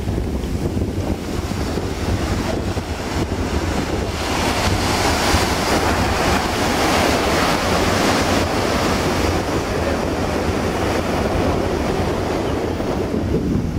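Ocean surf breaking and washing up a sandy beach, with wind buffeting the microphone as a steady low rumble. The wash of a wave swells about four seconds in and eases off a few seconds later.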